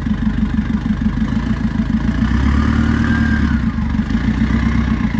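Mercedes Sprinter 4x4 van's diesel engine idling steadily, with a brief swell about halfway through.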